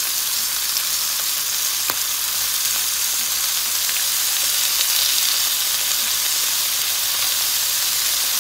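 Pieces of fermented pork belly (naem sam chan) sizzling steadily in a frying pan as they sear in their own rendered fat and are turned over with metal tongs. There is a sharp click about two seconds in.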